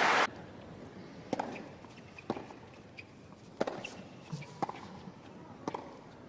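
Tennis rally on a hard court: sharp ball strikes about once a second, five in all, over a quiet background. Applause cuts off abruptly at the very start.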